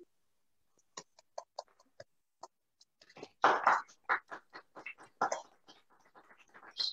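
Scattered hand claps from a few people applauding over a video call: at first one person clapping about five times a second, then denser, uneven clapping as others join about three seconds in.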